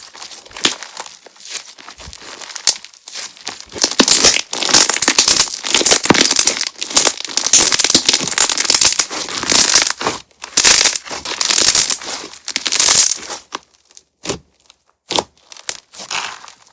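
Crunch-texture slime being squeezed and stretched in the hands, giving dense crackling and popping. It starts with light crackles, turns loud and continuous about four seconds in, then thins to scattered pops near the end.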